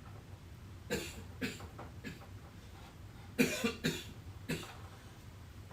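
A man coughing in short harsh bursts: a couple of coughs about a second in, then a louder cluster of coughs three and a half to four and a half seconds in, over a steady low hum.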